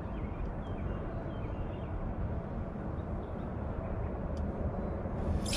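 Steady low outdoor background noise on the water with a few faint bird chirps early on. A louder rushing noise comes in near the end.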